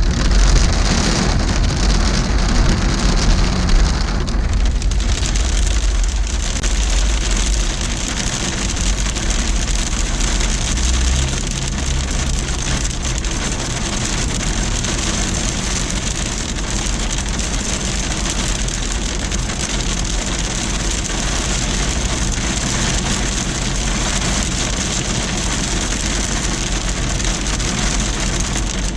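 Heavy rain and sleet falling steadily, with a low rumble that is strongest through the first eight seconds or so.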